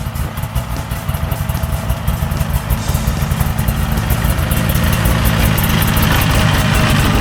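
A vehicle engine running, steadily growing louder.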